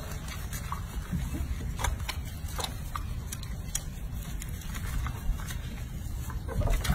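Hands lathering a baby monkey's wet, soapy fur in a basin of water: soft rubbing and small splashes, with scattered light clicks.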